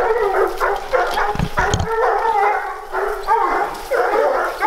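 Hunting dogs baying and barking in quick, overlapping calls at a mountain lion treed above them.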